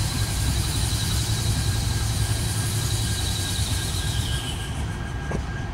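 GE Dash 9-40C and EMD SD60E diesel locomotives running light past at low speed, their engines giving a steady low rumble. Over it runs a thin, high, steady wheel squeal from the yard track, which drops slightly in pitch about four seconds in.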